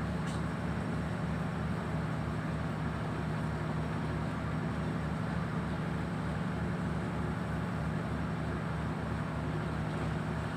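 An engine on a moored boat running steadily, with a regular low throb a few beats a second under a constant hum.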